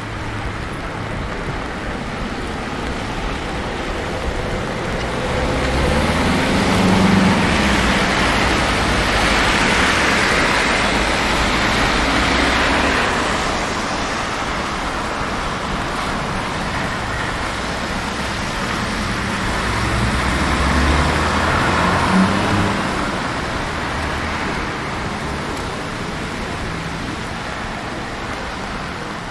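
Road traffic on a wet street: the steady hiss of tyres on wet tarmac, with two vehicles passing close, one about six seconds in and another about twenty seconds in, each swelling with engine rumble and then fading.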